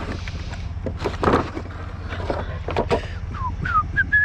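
A few clunks and knocks of scrap metal being handled and loaded, over a steady low hum from an idling vehicle engine. Near the end come several short whistled notes that slide up and down.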